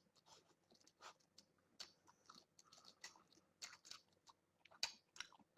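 Near silence: room tone with faint, scattered short clicks.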